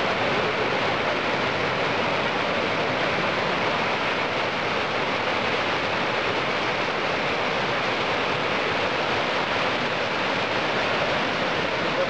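The Kizilkobinka mountain stream rushing over rocks in small cascades: a steady, unbroken rush of water.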